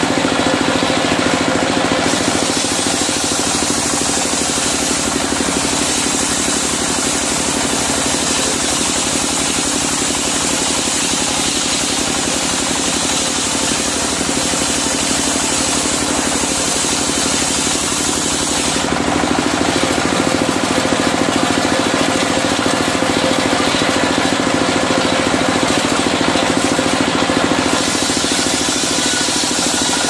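Single-cylinder diesel engine running steadily, driving a circular sawmill blade that rips through medang timber. The cutting hiss rises about two seconds in, eases about two-thirds of the way through, and picks up again near the end.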